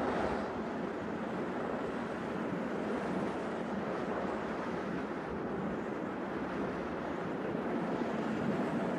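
A steady rushing noise with no tone or rhythm in it, holding even throughout.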